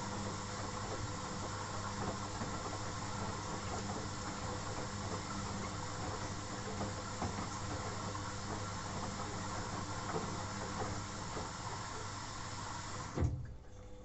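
Atlant 60U1010 washing machine running in its rinse cycle: a steady hiss over a low hum, which cuts off suddenly with a knock near the end, leaving a quieter hum.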